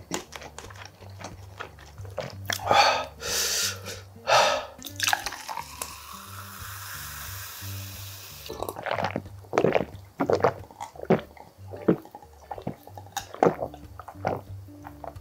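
A drink poured from a plastic bottle into a tall glass, the pour's pitch rising as the glass fills. Then a run of gulps and breaths as it is drunk down, over quiet background music.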